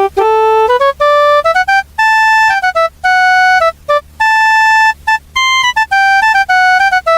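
Casio CTK-245 portable keyboard playing a melody one note at a time on one of its built-in tones, a mix of short and held notes with brief gaps between them.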